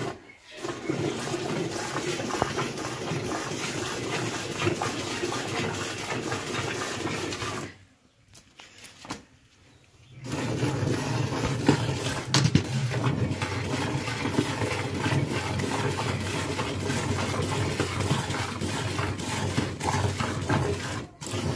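Cow being hand-milked: streams of milk squirting into a steel bucket that already holds milk, a steady hiss, broken by about two seconds of near silence around eight seconds in.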